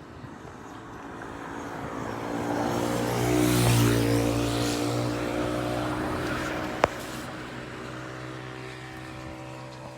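A motor vehicle passing by, its engine growing louder over the first few seconds and then slowly fading away, with one sharp click about seven seconds in.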